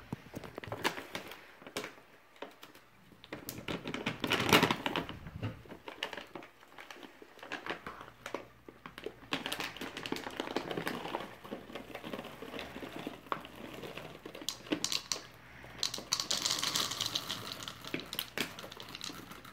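A large plastic bag of chocolate chips crinkling as it is handled, with many small clicks of chips dropping into a plastic measuring cup. A louder burst of crinkling comes about four seconds in and again near the end.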